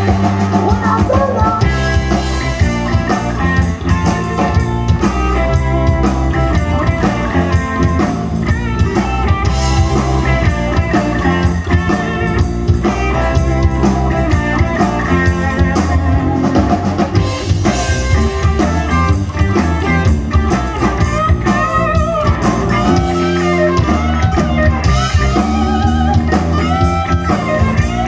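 Live rock band playing: electric guitars over bass guitar and a drum kit, loud and continuous with a steady beat.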